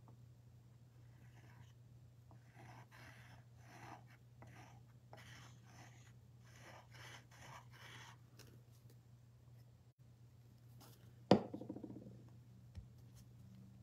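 Paintbrush strokes on a wooden cutout: a run of short, scratchy strokes over the first eight seconds or so, then a single sharp knock about eleven seconds in.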